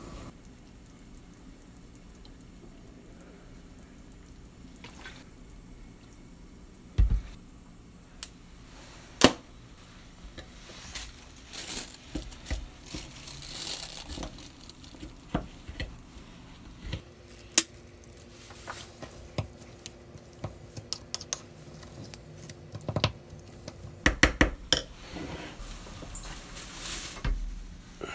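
A metal spoon clinking and scraping against a ceramic bowl as a thick, wet red pepper seasoning paste is stirred. A couple of sharp taps come first, then the mixing turns steady with frequent clinks and squishing.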